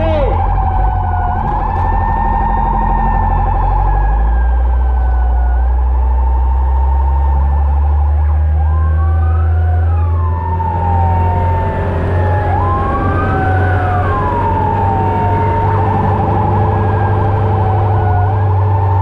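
Fire truck siren wailing in slow rising and falling sweeps, heard from inside the cab over the truck engine's steady low drone. From about eight seconds in, a second siren tone sweeps up and down across the first for several seconds.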